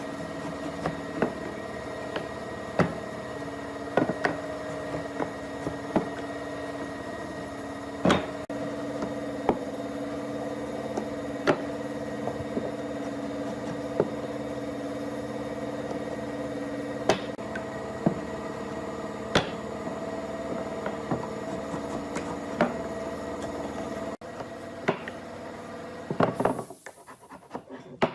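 Steady machine hum with irregular sharp knocks and taps, typical of tool work on wood. The hum cuts off near the end, followed by a few scattered clatters.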